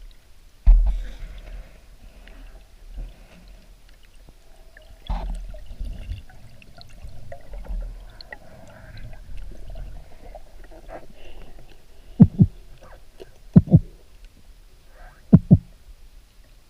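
Muffled water movement with low thumps: a sharp one about a second in, another about five seconds in, then three quick double thumps near the end.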